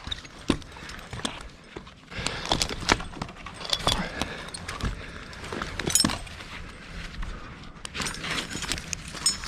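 Metal gear clinking and jingling, with scattered knocks and rustling handling sounds.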